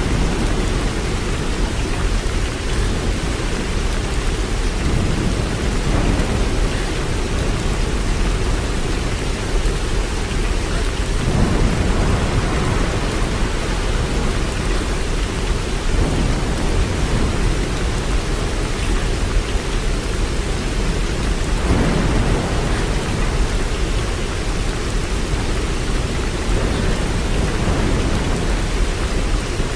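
Waterfall: a steady rush of falling water with a deep low rumble that swells gently every few seconds.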